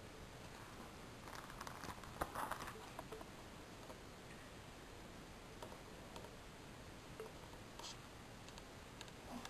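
Faint handling noise: soft clicks and crinkles of plastic binder sleeve pages being touched and moved, in a cluster about one to three seconds in, with a few scattered ticks later.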